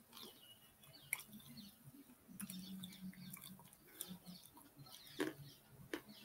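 A person biting at his fingernails close to the microphone: faint, irregular small clicks and wet mouth noises.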